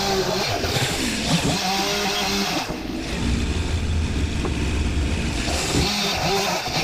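Gas chainsaw revving in bursts against the deck timber, dropping to a steady low idle for a couple of seconds in the middle, then revving up again near the end.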